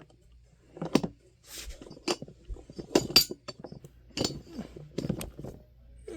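Small hard parts and tools being handled while a Honeywell HT-900 fan is reassembled: a scattered series of clicks, knocks and light clinks, about one a second, a few of them ringing briefly.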